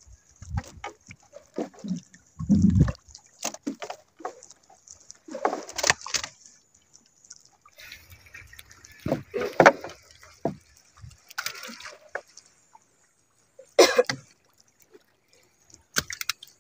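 Shallow seawater splashing and trickling in irregular bursts, with scattered knocks and clicks, as the water is disturbed by hand-catching fish.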